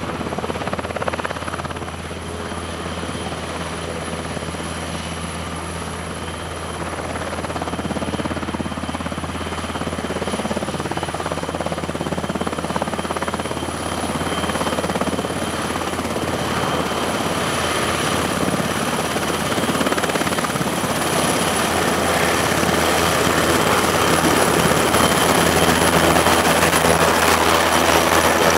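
NHIndustries NH90 twin-engine military helicopter running on the ground with its rotors turning: a steady high turbine whine over a low rotor drone, growing gradually louder.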